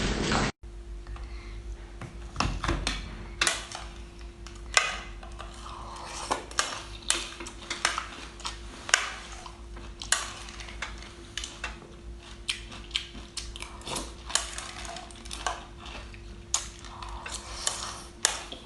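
Irregular sharp clicks, clinks and crackles of utensils and crunchy food being handled and eaten, over a steady faint hum.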